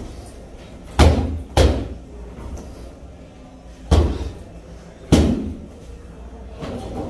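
150 lb heavy punching bags being struck hard: four deep thuds, two about half a second apart about a second in, then two more about a second apart around the middle, and a lighter hit near the end.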